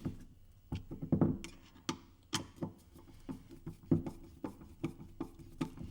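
Irregular light clicks and knocks of wheel parts and screws being handled as the screws are threaded in by hand, with a little rubbing.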